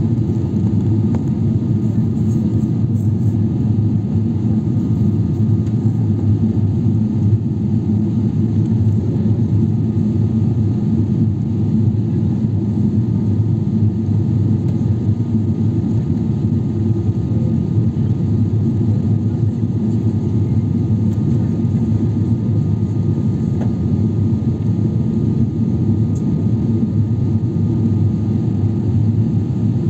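Steady cabin rumble inside a Boeing 777-300ER airliner in flight: the GE90 engines and rushing airflow heard from a window seat over the wing, even and unbroken, with a faint steady whine above the low roar.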